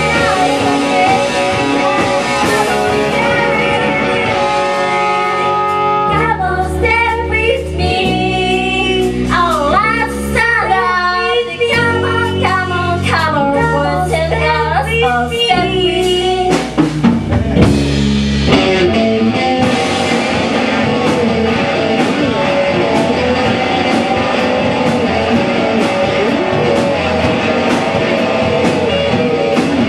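Rock band playing with electric guitar, bass and drums, and a singing voice. Held notes open it, then a bending melody runs over stepping bass notes, and about 19 seconds in the band comes in fuller, with steady drum hits.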